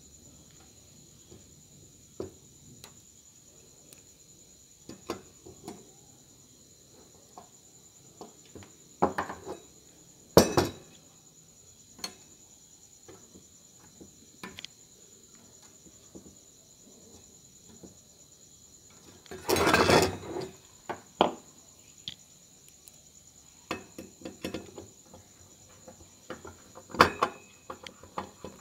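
Screwdriver, small screws and parts clicking and clinking against an aluminium heatsink and circuit board as power transistors are screwed down, in scattered taps. There are louder knocks about ten seconds in and again about twenty seconds in, the second a short clatter lasting about a second.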